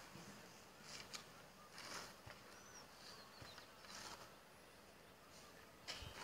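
Near silence: faint outdoor ambience with a few soft, brief rustles and a couple of faint high bird chirps.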